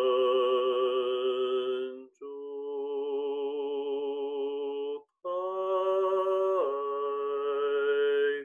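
A man chanting a Zhineng Qigong sound practice in long held notes: three notes of about three seconds each, with short breaks for breath between them. The voice wavers slightly around a steady pitch, and the third note steps down in pitch partway through.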